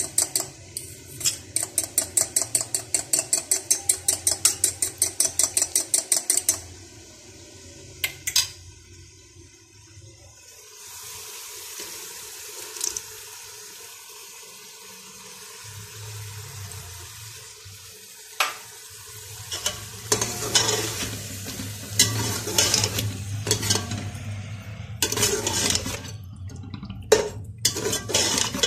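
A metal spoon beats yogurt in a small glass bowl, clinking against the glass in a rapid, even rhythm for about six seconds. Then a steady sizzle of masala frying in a metal pot, with a spoon knocking once or twice. Near the end comes louder, uneven scraping as the spoon stirs the pot.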